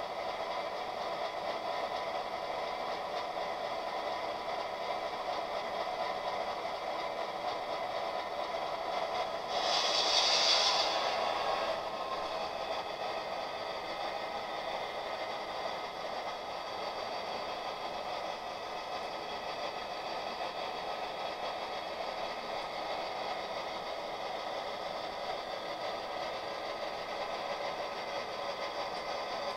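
HO-scale model train running on the layout track: a steady electric-motor whir and light rail clatter. About ten seconds in, a louder hiss swells for roughly two seconds, then fades.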